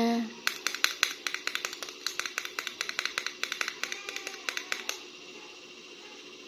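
Small, sharp clicks and taps in a quick, irregular run, several a second, from plastic toy figures being handled; they stop about five seconds in.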